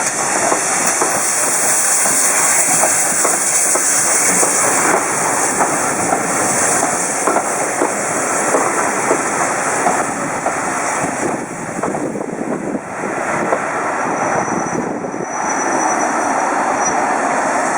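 A steam-hauled passenger train running past, its wheels clattering steadily over the rail joints, with hissing that is strongest in the first few seconds.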